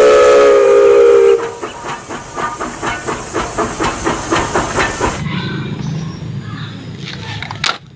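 Steam locomotive sound: the steam whistle blows a held chord, stopping about a second and a half in, then the engine chuffs with hissing steam at about four chuffs a second. Near the five-second mark the chuffing gives way to a quieter low rumble.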